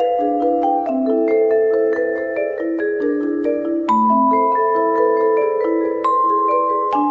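Background music: a gentle melody of struck mallet-percussion notes, a few per second, each ringing on under the next.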